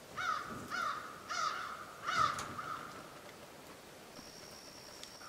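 A crow cawing four times over about two seconds, the calls a little over half a second apart.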